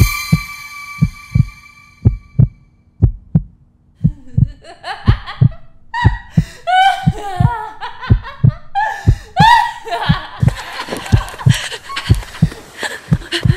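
Heartbeat sound effect, low double thumps repeating steadily, under a high ringing tone that lasts about a second and a half at the start. About four seconds in, eerie laughing, chattering voice sounds come in with bending pitches, growing into a harsh noisy wash after about ten seconds.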